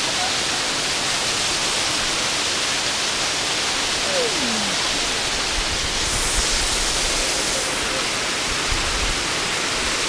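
Steady rush of a waterfall's falling water, with a low rumble partway through.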